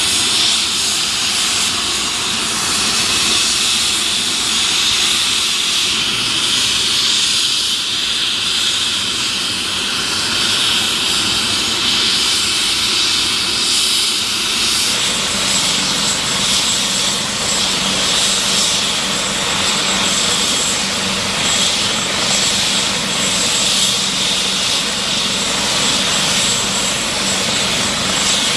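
AW139 helicopter's twin turboshaft engines and rotor running during start-up: a steady loud turbine whine and rush. A high whistling tone comes in about halfway through.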